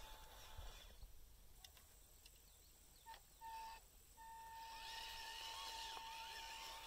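Near silence: faint outdoor ambience with a faint steady thin tone that drops out for about three seconds and then returns.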